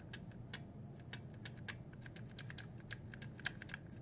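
Futaba MA switches on a vintage keyboard pressed and released repeatedly by hand, a quick run of sharp clicks about three or four a second.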